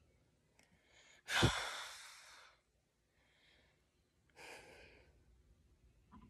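A boy sighing heavily close to the microphone about a second in, with a puff of air hitting the mic, then a softer breath out a few seconds later.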